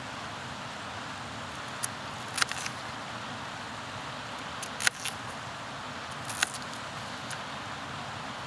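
Knife chopping a yam on a thin plastic cutting board: about five sharp, irregular knocks of the blade striking the board. Under them, the steady rush of a river.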